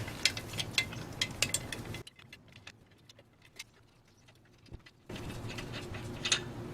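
Lug nuts being unscrewed from a car's wheel studs: a run of light metallic clicks and clinks, broken by about three seconds of near silence in the middle.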